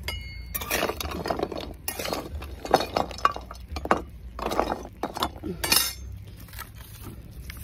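Metal spatula scraping and clinking against an iron kadhai as chunks of multani mitti (fuller's earth clay) are stirred and turned while roasting over a wood fire, the chunks knocking against the pan. The strokes come in an irregular run and ease off about six seconds in.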